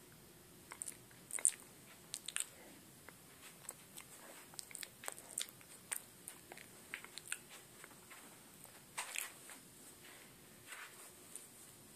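Faint, irregular clicks and crackles, most likely handling noise from fingers and casing on a handheld camera that is being moved around. The sharpest click comes about a second and a half in, and a longer crackle comes around nine seconds in.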